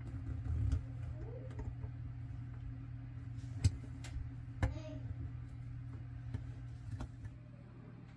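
A steady low hum under scattered light clicks and knocks, with two sharper clicks about three and a half and four and a half seconds in.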